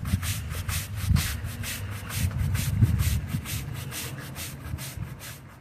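Stiff-bristled push broom sweeping kiln-dried sand across block paving in quick, repeated scratchy strokes, working the sand into the joints between the pavers. The strokes grow fainter near the end.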